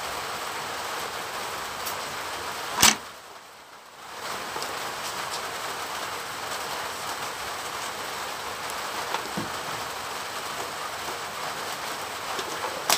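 Steady rain hiss. A single sharp knock comes about three seconds in, then the sound is muffled for about a second before the rain noise returns.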